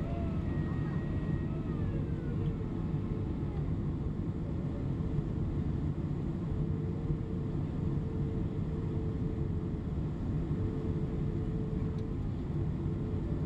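Steady cabin roar inside a Boeing 767-300 on approach: engine and airflow noise heard from a passenger seat, with a faint steady hum coming and going midway.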